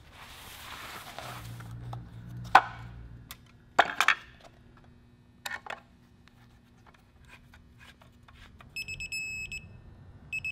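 A hiss fades in the first second, then a few sharp metallic clinks and knocks of tools and parts being handled. Near the end, two short pulsed high electronic beeps sound about a second and a half apart.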